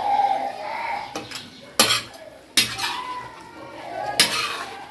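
Metal spatula scraping and clanking against a tawa as mutton chops are stirred and turned in oil, with several sharp clanks spread through the stirring.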